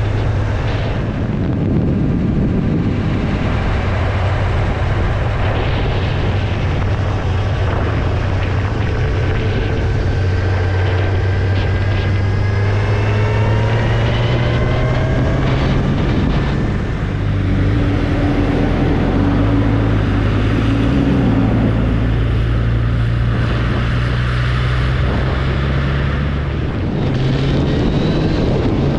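Motorcycle engine running while riding, with wind noise on the microphone. Partway through, the engine note rises steadily for several seconds, as when the bike accelerates.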